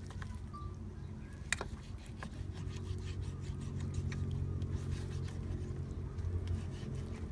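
A motor vehicle's engine running with a low steady hum that slowly grows louder, over scattered light clicks of a knife cutting meat on a wooden cutting board, one sharper click about a second and a half in.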